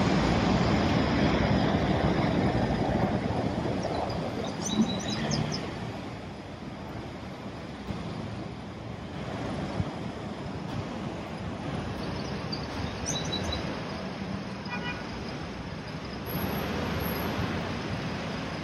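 Road traffic on a busy street: a steady rush of passing cars, loudest for the first few seconds and then easing, with swells as vehicles go by.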